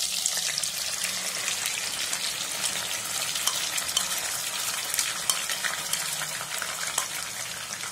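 Wet ground green masala paste sizzling and crackling in hot oil with curry leaves as it goes into the pan raw, a steady frying hiss dotted with sharp pops.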